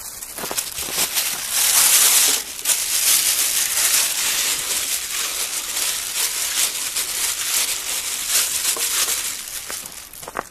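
Thin plastic bag crinkling and rustling as a bagful of whole sandfish is handled and shaken out into a cooking pot, loudest about two seconds in.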